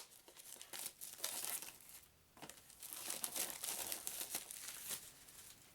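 Cellophane shrink wrap being torn and crinkled off a cardboard game box, in irregular rustling bursts with a brief pause about two seconds in.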